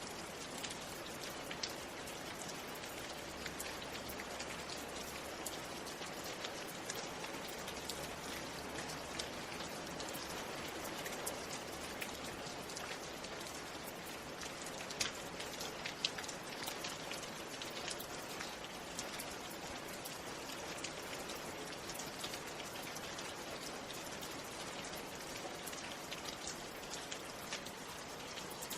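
Steady rain falling, a constant hiss with many small drop ticks.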